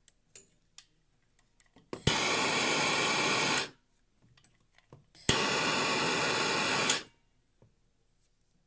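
Soldering torch flame firing in two bursts of steady hissing rush, each under two seconds and starting and stopping abruptly with a click, as it heats copper pipe joints for sweat soldering. Faint scattered ticks between the bursts.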